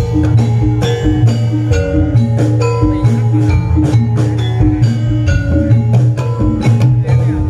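Gamelan accompaniment for jathilan dance: metal mallet instruments play a quick repeating melody over a steady low hum, with frequent sharp drum strokes.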